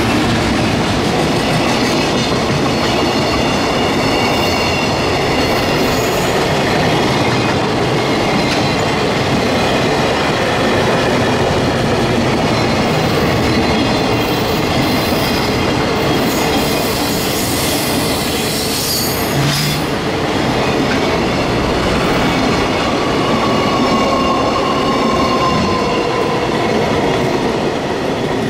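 Container flat wagons of a freight train rolling past steadily, steel wheels running on the rails with faint high ringing tones above the rumble. The noise begins to fade near the end as the last wagon goes by.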